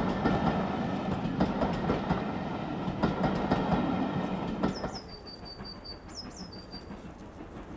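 A steam-hauled train running past, its wheels clicking over rail joints above a steady rumble. A little under five seconds in the sound drops away suddenly, leaving a quieter background with a short run of high chirps.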